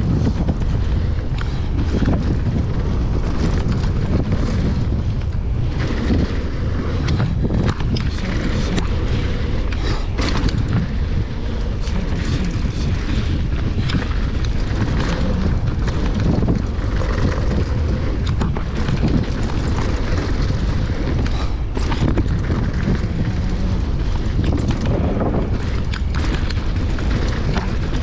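Downhill mountain bike rolling fast over a dirt trail: steady wind rumble on the action camera's microphone and tyre noise, with frequent short rattles and clicks from the bike over bumps.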